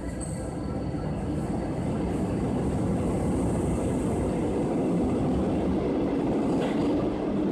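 MF67 metro train running along the platform. Its rumble grows louder over the first few seconds and then stays steady.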